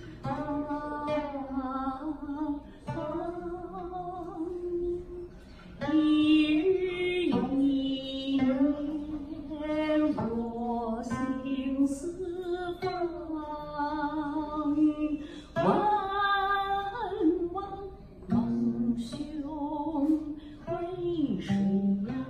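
A woman singing a qin song while accompanying herself on the guqin: long, slowly gliding sung notes over plucked zither strings, in unbroken phrases with short breaths between them.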